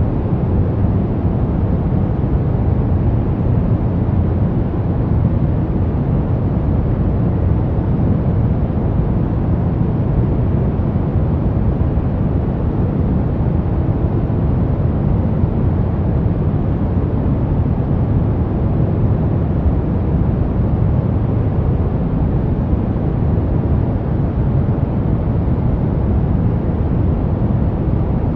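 Brown noise: a steady, deep hiss, strongest in the bass and thinning toward the treble, with no changes.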